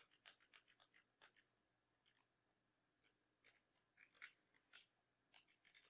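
Faint, quick ticking of a computer mouse's scroll wheel in irregular runs, with short pauses between the runs.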